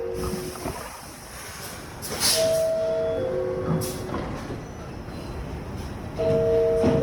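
R62A subway car door chime: a two-note falling ding-dong that sounds once in full about two seconds in and starts again near the end. A short hiss comes as the first full chime begins.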